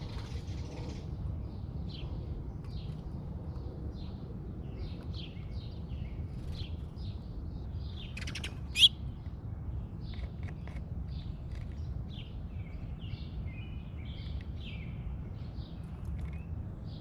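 Songbirds chirping and calling in many short notes, with one sharp, loud call about nine seconds in, over a steady low rumble.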